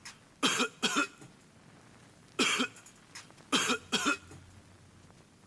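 A person coughing: five harsh coughs in three bouts, two, then one, then two.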